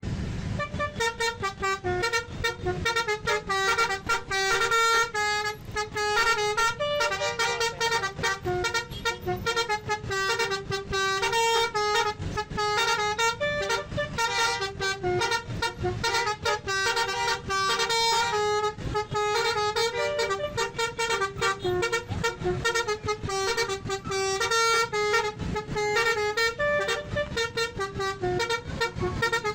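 Telolet basuri bus horn, a multi-tone horn set playing a fast tune of short notes one after another without a break.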